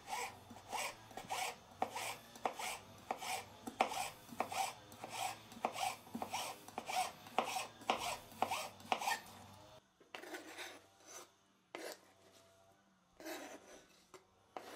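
Kitchen knife slicing pickled gherkins on a plastic cutting board: a steady run of short, faint cuts, about three a second. They stop about ten seconds in, and a few sparser, softer knocks follow.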